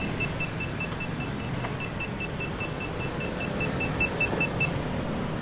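City street traffic noise, steady. Over it, a rapid high electronic beeping at about five beeps a second stops about four and a half seconds in.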